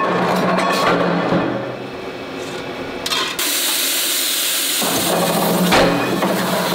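Forming press working on an aluminium frying-pan disc blank: a steady low machine hum with a few metal clicks and knocks as the blank is set on the die. About halfway through, a loud steady hiss starts suddenly and carries on as the press head comes down.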